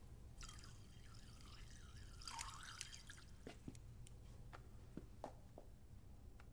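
Faint, scattered drips of liquid: a handful of small wet ticks, spaced apart, in the second half. A faint wavering sound comes before them.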